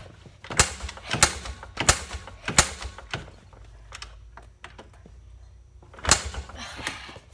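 Kick-start lever of a four-wheeler being kicked over again and again, with sharp ratcheting mechanical clacks. There are four strong strokes about two-thirds of a second apart, a few lighter clicks, then two more strokes near the end. The engine does not catch: it is hard to start.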